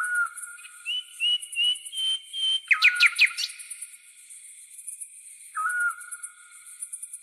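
Tropical forest birds and insects: a clear whistled bird note repeated, and a short run of stepped chirps. About three seconds in comes a quick cluster of sharp sweeping notes. Under it all is a steady, pulsing high-pitched insect trill.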